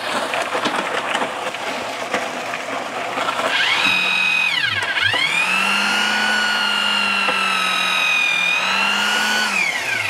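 Blue cordless drill running against the concrete hose: its motor whine starts about three and a half seconds in, slows nearly to a stop around the five-second mark, spins back up and runs steadily, then winds down near the end. Beneath it, the steady mechanical noise of the running concrete mixer.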